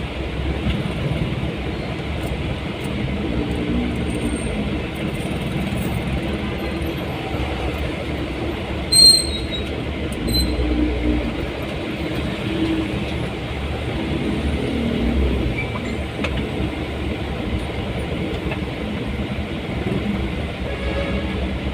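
Steady vehicle running and road noise on the move, with a brief, sharp, high-pitched squeak or beep about nine seconds in.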